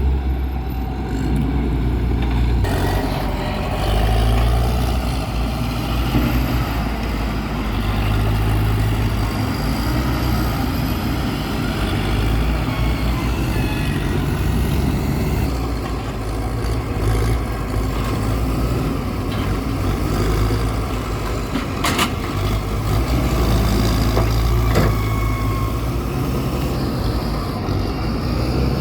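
Heavy diesel engine running under varying load, its low hum swelling and easing, with a sharp knock about three-quarters of the way through.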